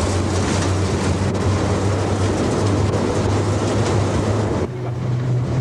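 Diesel locomotive engine running with a steady low hum, mixed with a rushing noise of wind and movement, heard from inside the cab. Near the end the sound changes abruptly: the rushing noise drops away and the engine hum steps up in pitch.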